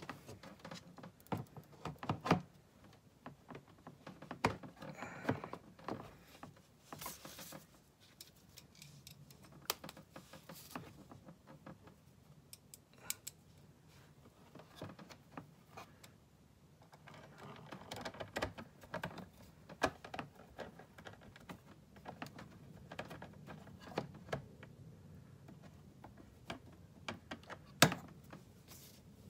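Scattered small clicks, taps and scrapes of hands fitting an aftermarket fog lamp into its plastic bumper bracket, with a sharper click near the end.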